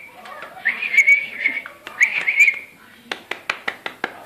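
A Spanish water dog puppy whining in high-pitched, wavering whimpers, in two stretches. Near the end comes a quick run of about eight sharp clicks.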